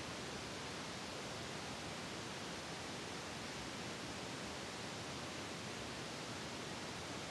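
Steady, even hiss like static, with no footsteps, commands or other sounds standing out.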